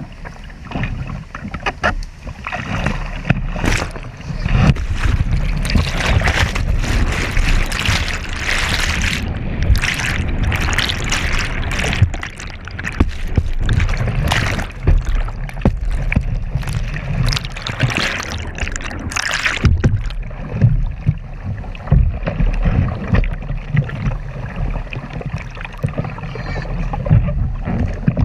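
Rushing white water close around a kayak-mounted GoPro as an Old Town Dirigo 106 kayak runs a rapid, with many splashes and knocks of water and paddle against the hull and camera. The noise is loudest through the middle, when water washes over the camera, and eases to a duller rush near the end.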